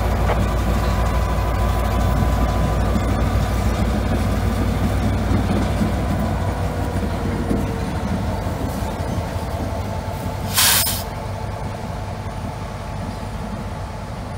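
EMD MP15DC switcher locomotive rolling slowly past, its diesel engine running with a deep rumble over the sound of its wheels on the rails, slowly fading as it pulls away. About ten and a half seconds in, a short, loud hiss of air bursts from the locomotive.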